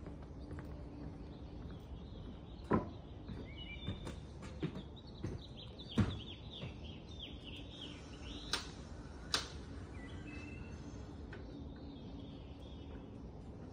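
Small birds chirping in the surrounding trees in short, quick downward-sliding calls over a faint steady low hum. A few sharp knocks sound at uneven intervals, the loudest about six seconds in.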